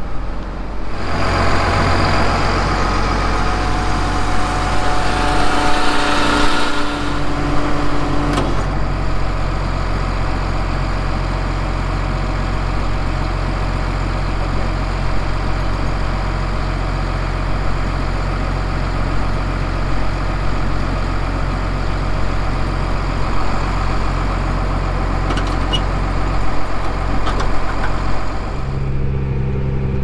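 Case IH 240 tractor's diesel engine idling steadily, with a louder, noisier stretch over the idle for the first eight seconds or so.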